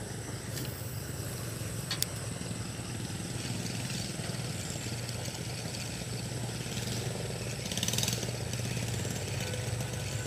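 A small engine running steadily at idle, a low even hum, with a sharp click about two seconds in.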